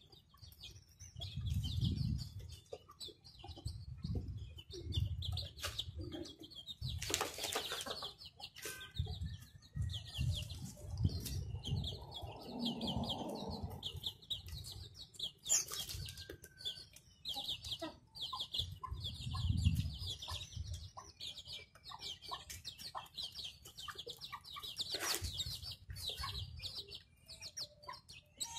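Small flock of chickens at feed: young chicks peeping rapidly and almost without pause, hens clucking low, and beaks tapping on cardboard. Three brief louder rustles come through, likely wing flaps.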